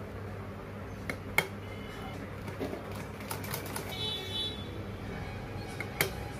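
Black Usha sewing machine clicking slowly and irregularly as a few stitches are taken, with two sharp clicks, one about a second in and one near the end, over a steady low hum.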